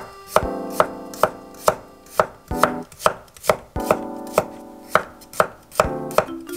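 Kitchen knife slicing garlic cloves on an end-grain wooden chopping board: the blade knocks on the wood in a steady rhythm, about two to three strokes a second.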